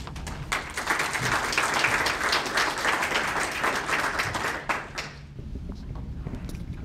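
A small audience applauding, clapping thickly and then dying away about five seconds in.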